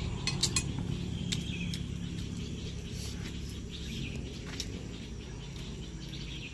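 Rural outdoor ambience: a steady low rumble with faint bird chirps, and a few sharp clicks, several in the first two seconds and one about four and a half seconds in.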